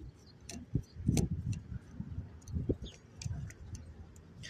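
A Phillips screwdriver working screws out of the hop-up unit of a Cyma PP-19 Bizon airsoft gun: scattered small clicks of the tool on the screws, with soft knocks from handling the gun.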